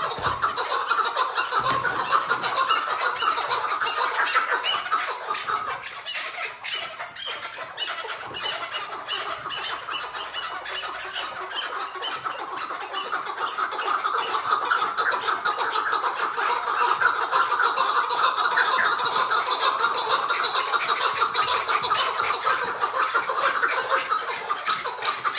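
Several caged chukar partridges giving their soft, rapid chattering call (hıngırma), a dense run of quick notes. It eases off a little about six seconds in and builds again after the middle.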